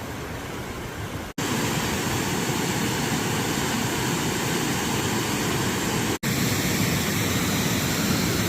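Waterfall rushing steadily, a dense even wash of falling water. It cuts out for an instant twice, about one and a half seconds and six seconds in, and is louder after the first break.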